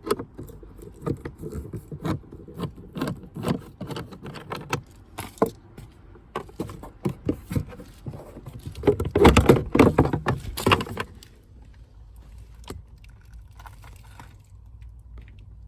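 Irregular clicks, taps and rattles of parts and tools being handled during work on a car's dashboard, with a denser clatter about nine to eleven seconds in, then only scattered ticks.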